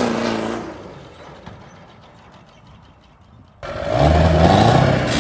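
Lifted mud truck's engine revving and falling away to a faint, quiet stretch with light ticking; about three and a half seconds in the sound cuts abruptly to the engine revving up again.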